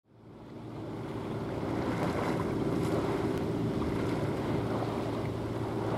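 Steady low drone of a vessel's engine over wind and water noise, fading in over the first second.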